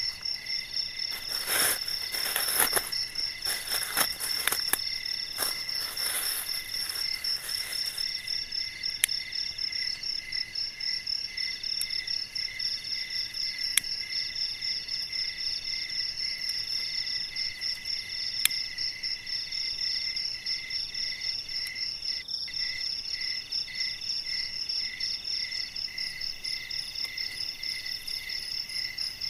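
A chorus of night insects: several steady, pulsing trills at different pitches. During the first several seconds there is rustling and knocking as bamboo sticks are handled, and a few sharp clicks follow later.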